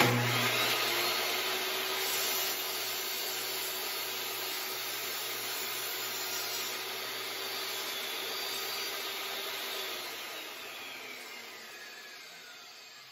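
Portable jobsite table saw started with a sudden whine, running steadily while it cuts through a sheet of plywood. About ten seconds in it is switched off, and the motor and blade wind down with a falling pitch.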